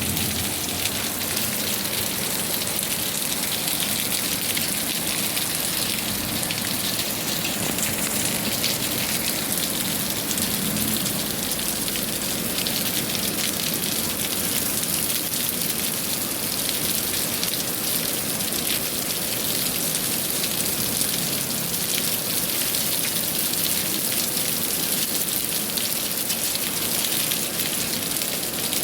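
Steady rain falling, an even patter of many raindrops that holds without let-up.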